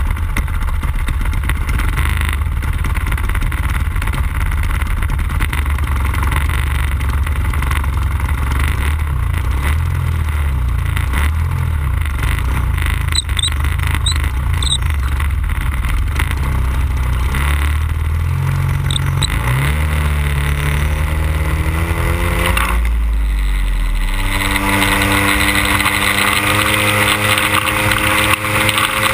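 The 100cc two-stroke gasoline engine of a giant-scale radio-controlled Cessna 182 Skylane model idles steadily, then is throttled up about two-thirds of the way through. Its pitch rises and settles into a steady high-power run.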